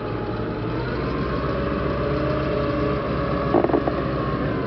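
M39 Armored Utility Vehicle's Continental R-975 radial engine running steadily as the tracked vehicle drives forward. A short burst of sharp knocks comes about three and a half seconds in.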